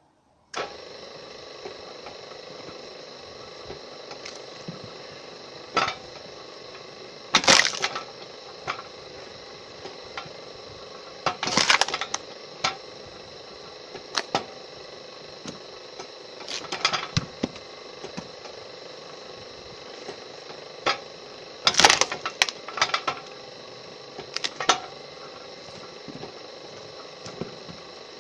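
Homemade firewood processor running with a steady, slightly tonal hum that comes on abruptly just after the start. Over it come repeated sharp cracks and knocks of logs being cut and split, in clusters that are loudest about a quarter, two fifths and three quarters of the way through.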